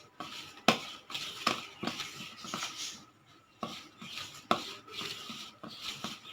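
A spoon scraping and clinking against a bowl while a stiff masala mix of gram flour, rice flour, spices and oil is stirred together, in irregular knocks with a short lull about three seconds in.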